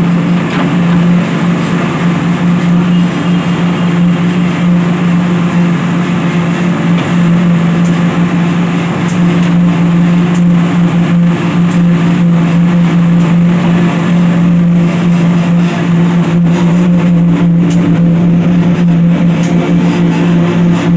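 A large engine running steadily at constant speed, a loud hum that holds one pitch throughout.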